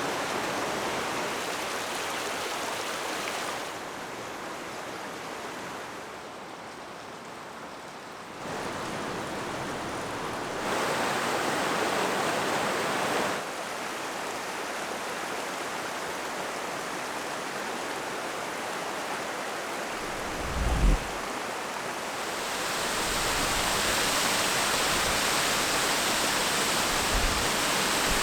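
Steady rush of a flowing canyon stream, changing abruptly in level and brightness several times. A brief low thump comes about two-thirds of the way through.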